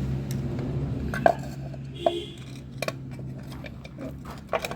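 Metal tools and parts clinking and knocking, several sharp strikes, over a steady low hum that fades near the end.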